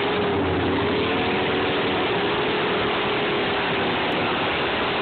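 Mercury Marauder drag car doing a burnout: its V8 held at high revs while the rear tyres spin. The sound is dense and steady, with the engine note wavering slightly.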